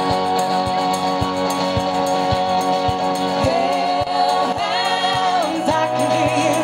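Background music with a steady beat; a singing voice comes in about three and a half seconds in, holding long notes.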